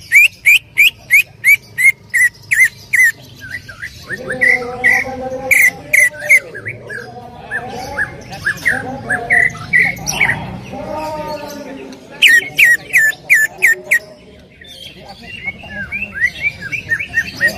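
Cucak ijo (greater green leafbird) singing: fast runs of sharp, repeated chirps at the start and again about twelve seconds in, with a lower, varied warbling song between them and softer chirps near the end.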